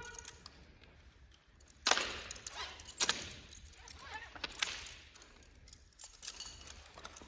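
Sharp slaps and clacks of hands striking drill rifles during a manual-of-arms movement, echoing in a gymnasium. The loudest comes about two seconds in, others follow roughly a second apart, and fainter clicks come near the end.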